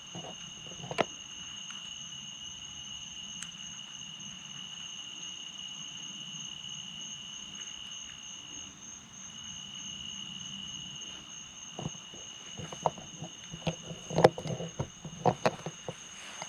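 Steady, high-pitched trilling of night crickets. Near the end comes a run of scattered clicks and rustles, the loudest about fourteen seconds in.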